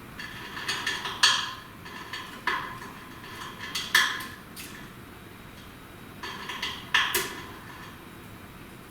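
Budgies knocking and rattling metal or plastic cage toys: groups of short clinks and clatters, the loudest about a second in, near four seconds and at about seven seconds.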